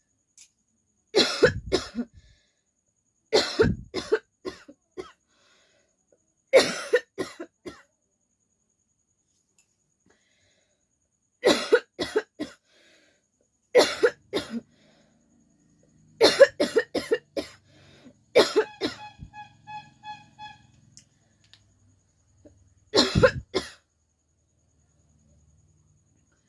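A woman coughing in repeated bouts of several harsh coughs each, about eight bouts in all, with silent pauses of a few seconds between them.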